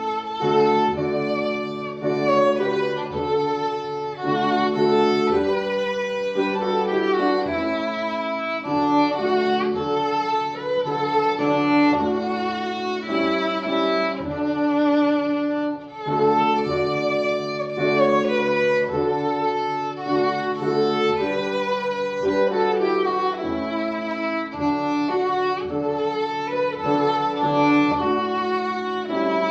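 Instrumental background music with a violin carrying a wavering melody over held low notes.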